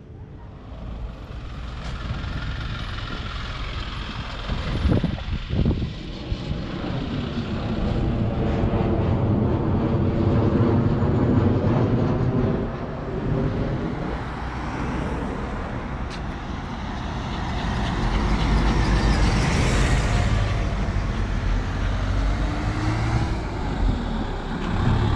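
Street traffic, with a motor vehicle's engine running close by and its pitch shifting as it moves. A few sharp knocks come about five to six seconds in.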